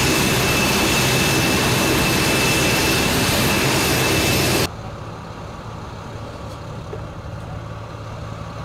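Fighter jet engine running on the ground: a loud, steady rush with a high whine. About four and a half seconds in it drops abruptly to a quieter, steady low engine hum.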